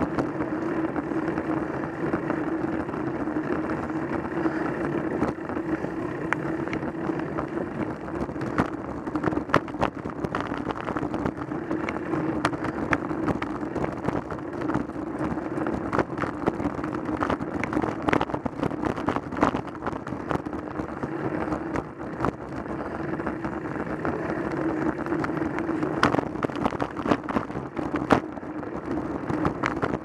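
Road bike riding on a tarmac lane, heard through a camera mounted on the bike: a steady rumble of tyre and road vibration with wind on the microphone, and frequent small knocks and rattles from the mount over bumps.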